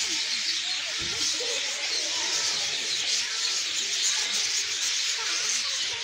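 A large flock of budgerigars chattering and warbling without a break: many small chirps overlapping one another.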